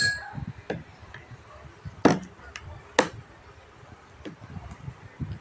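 A few sharp knocks on a hard surface, the two loudest about two and three seconds in, over low background noise.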